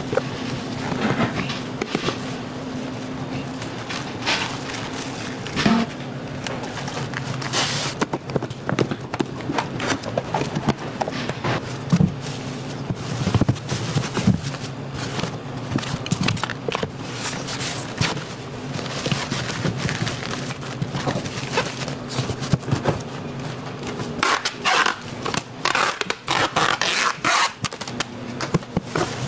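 Packing noises: knocks, clicks and scrapes of plastic containers and jar lids being handled and set into a styrofoam box, over a steady low hum.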